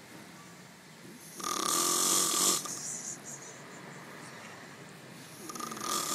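A sleeping man snoring loudly: two long snores about four seconds apart, each carrying a steady whistle-like tone over a hissy rattle, with quieter breathing between them.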